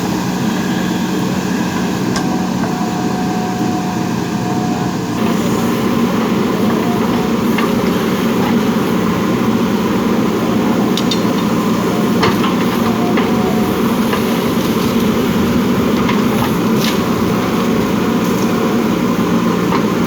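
Diesel engine of a JCB 3DX backhoe loader running steadily while digging, getting louder about five seconds in, with a few short sharp clanks.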